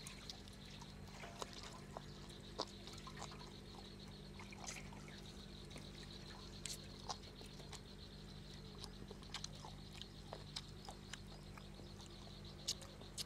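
Faint, scattered small clicks and wet mouth sounds of a man chewing and tearing steamed chicken by hand, over a steady low hum.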